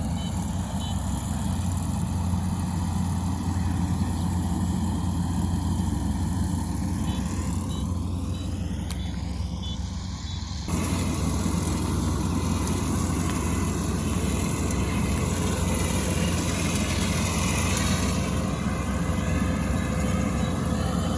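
Kubota combine harvester's diesel engine running steadily at harvest work, with a deep even hum; about halfway through the sound abruptly becomes louder and noisier.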